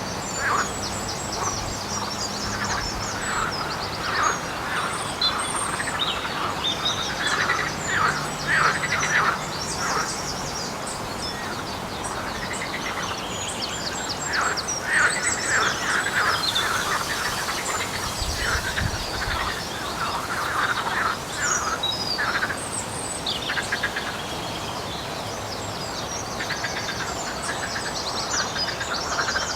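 An unidentified chorus of rapid, repeated animal calls from a lake, coming in clustered bouts with thin high chirps over them. Nobody ever saw what makes it; frogs or toads and a water rail or bittern are the guesses.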